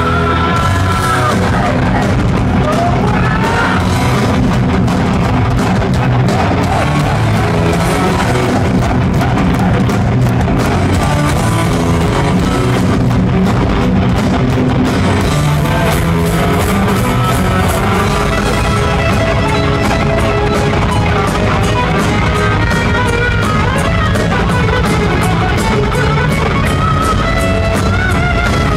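Heavy metal band playing live and loud: electric guitars over a driving drum kit, steady throughout.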